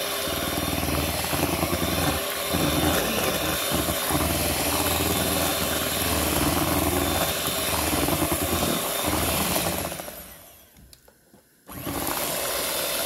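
Electric hand mixer running steadily, its beaters whipping a heavy-cream mixture in a pot. About ten seconds in it winds down and stops, then starts again abruptly a second or so later.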